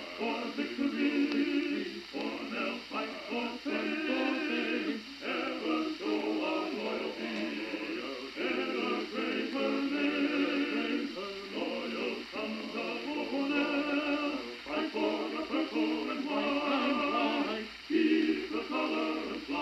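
Background music: a group of voices singing a song, with little or no bass beneath them.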